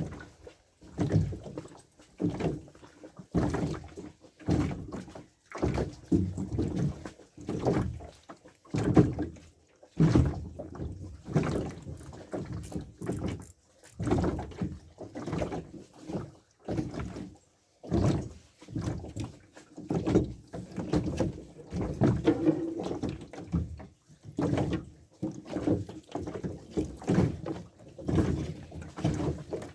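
Choppy water slapping and knocking against the hull of a small boat, in irregular bursts about once a second.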